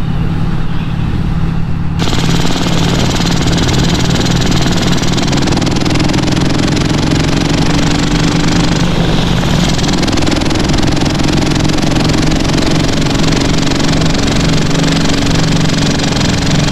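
Vincent Rapide Series C 1000cc V-twin engine running steadily while the bike is ridden along the road, with wind and road rush. About two seconds in, the sound gets fuller and louder, heard from close beside the engine.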